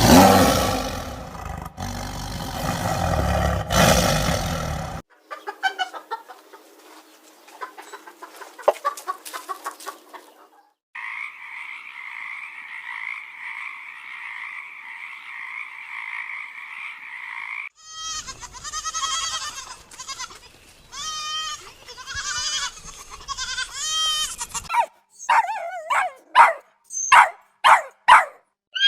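A run of separate animal sound clips cut one after another: a loud call lasting about five seconds, a steady hissing buzz in the middle, then a series of short repeated calls and a few sharp high chirps near the end, in the manner of farm fowl.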